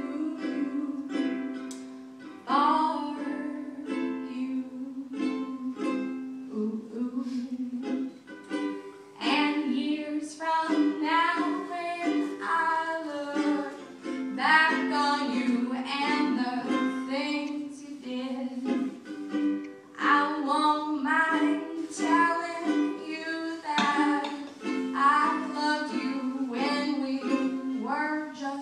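Ukulele strummed and plucked as a song accompaniment, with a woman singing over it through much of the passage.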